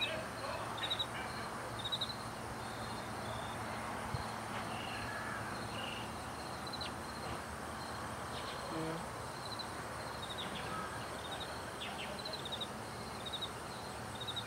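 Outdoor ambience: a steady background hiss with short, high chirps, each a quick run of pulses, repeating every second or two from a small bird or insect.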